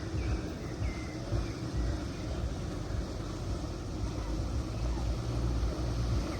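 Engine of a passing river tour boat: a steady low rumble that grows a little louder in the second half.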